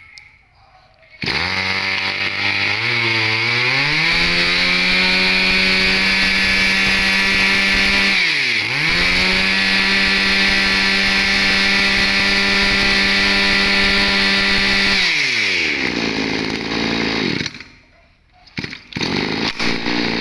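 Mitsubishi TB26 26cc two-stroke brush cutter engine starting about a second in and idling briefly, then revved up to high speed and held there. Near the middle the throttle is snapped shut and reopened. The engine drops back to idle and shuts off near the end, followed by a few knocks.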